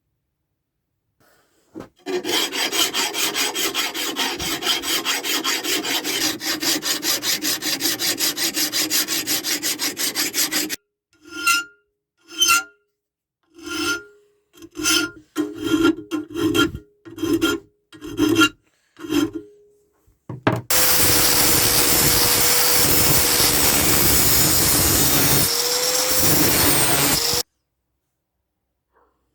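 Hand-tool rasping and filing: about eight seconds of fast, even strokes, then about eleven separate slower strokes with a slight ring, then some seven seconds of a steady hissing grind.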